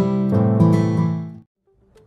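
Background music with strummed acoustic guitar, fading out about a second and a half in. After a brief silence, a quieter music track begins near the end.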